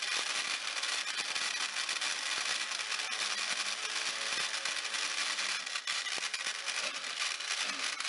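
Mini electric food processor running steadily, its blade grinding dried stevia leaves in a glass bowl, with a constant whirring hiss and dense crackling ticks.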